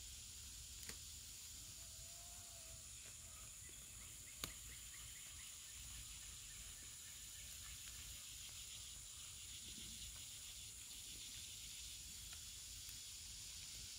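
Faint summer woodland ambience: a steady, high-pitched insect chorus. Two sharp clicks come about one second and four and a half seconds in, and a brief whistle-like note about two seconds in.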